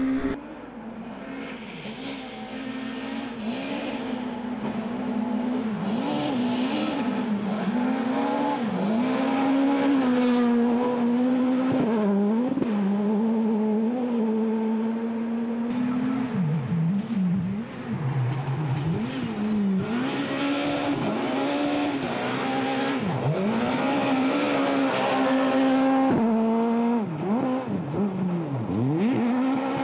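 Škoda rally car's engine revving hard at full throttle on a gravel stage, its pitch dropping and climbing again over and over through gear changes and lifts for corners, with several deep swoops near the middle and toward the end. Loose gravel hisses and sprays under the tyres.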